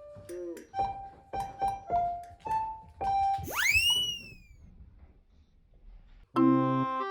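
Background music: short, light keyboard notes, then one whistle-like glide that swoops up and falls back about three and a half seconds in, a brief lull, and louder keyboard chords near the end.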